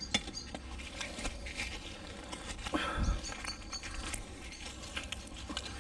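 Scattered small clicks and scrapes of metal bits being handled and pulled off a large neodymium fishing magnet, with a slightly louder knock about three seconds in, over a low rumble.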